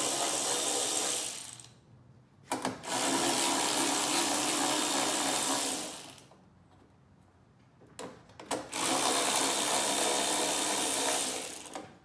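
Cordless drill-driver running, stopping about a second in, then running twice more for about three seconds each as it backs out 10 mm hex-head bolts. Short clicks come in the pauses between runs.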